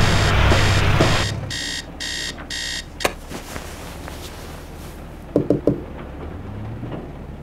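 A heavy excavator engine rumbles under a repeating electronic beep. The beeping carries on as an alarm clock, beeping three times; a click cuts it off. A few seconds later come three quick knocks, knuckles rapping on a window pane.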